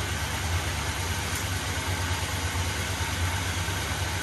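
1981 GMC pickup's engine idling steadily, a low even hum. It is being run so the fluid level of the newly installed TH350 automatic transmission can be checked on the dipstick.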